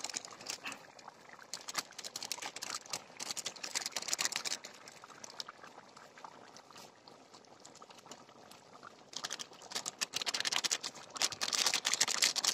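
Chicken curry boiling hard in a large open pan over a wood fire: a dense crackle of popping bubbles, quieter in the middle and louder from about nine seconds in.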